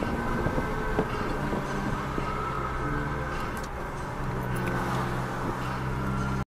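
A car's engine and tyres run with a steady hum on the road, heard from inside the cabin.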